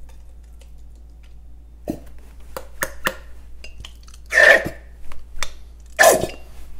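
Plastic ketchup squeeze bottle squeezed upside down, giving small clicks and then two loud spluttering squirts about four and six seconds in. The bottle is running low, so air is forced out with the ketchup.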